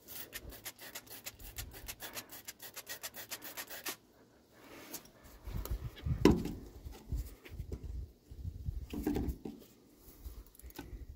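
A trigger spray bottle squirting fuel into the carburettor of a 1974 Chevy C30's engine, pumped in a quick run of sharp squirts that stops abruptly after about four seconds. Irregular low thumps and rustling of handling follow.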